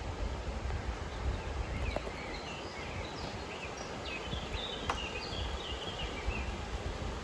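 A small bird chirping in short, quick notes over a steady outdoor rumble, with a single sharp click about five seconds in.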